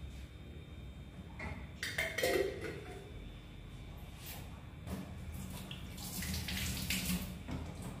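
Kitchen tap running briefly into a stainless steel sink as a spoon is rinsed under it in the second half. About two seconds in come a few sharp knocks of the metal spoon against the glass jar.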